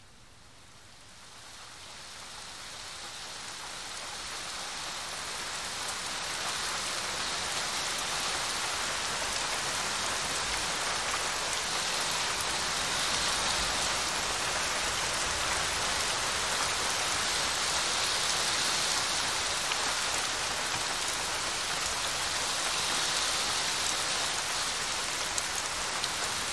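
Rain falling steadily, swelling up from faint over the first six seconds or so and then holding even.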